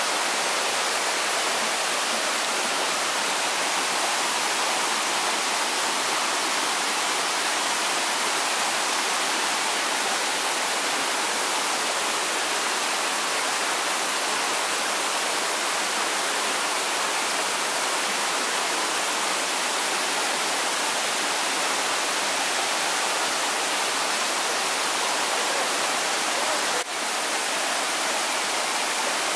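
Steady rushing of water pouring over a small stepped cascade into a pool, an even hiss with a brief break near the end.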